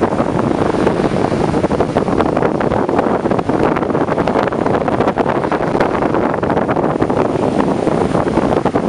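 Strong wind blowing across the camera microphone: loud, steady noise with constant gusty crackle, and surf mixed in beneath it.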